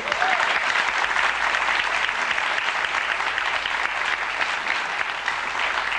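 Studio audience applauding: dense, steady clapping that starts suddenly and begins to thin out near the end.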